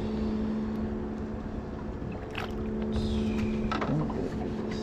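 A boat's motor running steadily, a constant hum over a low rumble, with a few brief clicks or knocks on board.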